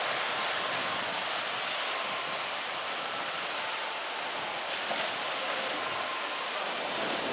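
Steady wash of sea waves against a concrete seawall, an even hiss with no distinct splashes.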